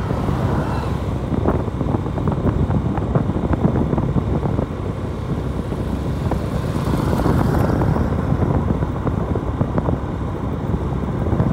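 Motorcycle riding along: a steady rush of engine and road noise, buffeted by wind on the microphone, swelling briefly about seven seconds in.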